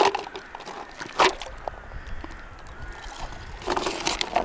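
Soaked corn kernels poured from a plastic tub into a cut-off plastic bottle, rattling against the thin plastic in short bursts, about a second in and again near the end, as a homemade bait bottle is loaded for groundbaiting. Faint bird calls in the background.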